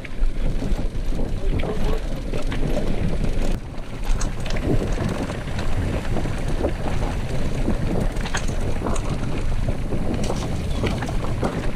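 Wind buffeting the microphone as a mountain bike rolls fast down a dirt road, tyres rumbling on the loose dirt with scattered clicks and rattles from the bike. The noise dips briefly about three and a half seconds in.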